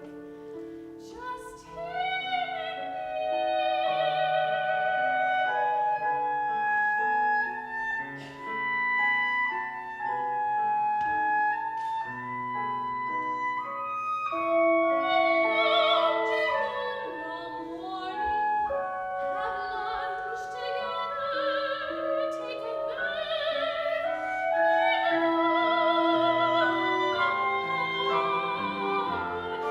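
Operatic soprano singing an aria with wide vibrato on long, high held notes, over sustained instrumental accompaniment.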